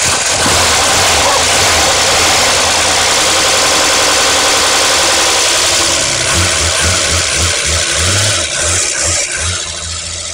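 Holden 202 straight-six engine with a newly fitted camshaft and lifters, running loud and fast on an engine stand. After about six seconds the revs drop and a slower, uneven pulsing comes through as it eases down toward idle.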